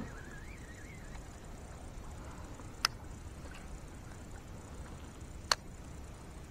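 Two sharp clicks about two and a half seconds apart over a steady low background noise, with a faint wavering high tone in the first second.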